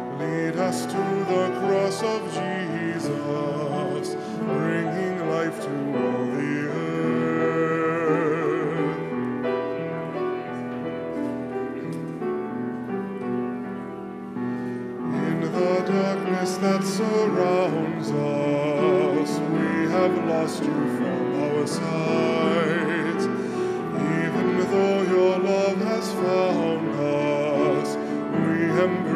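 Communion hymn sung with piano accompaniment: a sustained, wavering sung melody over the piano.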